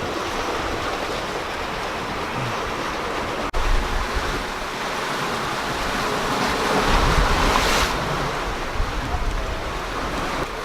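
Sea water rushing along a sailing yacht's hull as it sails under way, with wind on the microphone. The wash swells louder for a moment about seven seconds in.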